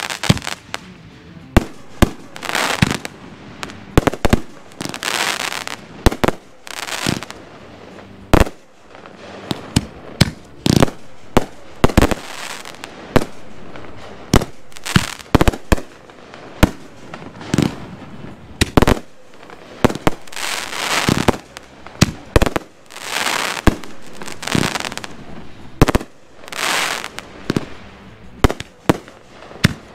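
Consumer fireworks going off in a show. Many sharp bangs come at irregular intervals, one to a few seconds apart and sometimes in quick clusters. Between them are hissing stretches of about a second each.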